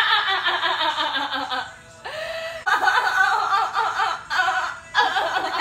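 Women laughing in runs of quick, pulsing giggles that slide down in pitch, breaking off about two seconds in and starting up again.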